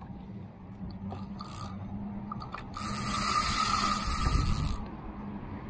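Penn Spinfisher VI spinning reel whirring steadily for about two seconds, starting about three seconds in, with a hooked tarpon on the line.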